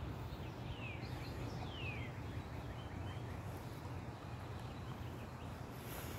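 Wind buffeting the microphone in a steady low rumble, with a few short falling whistled bird calls in the first two seconds.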